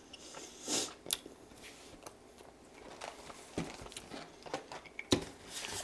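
Quiet handling sounds at a table: a short breath, a sharp click, a few small ticks, then two soft knocks about a second and a half apart as a cardboard snack box is picked up.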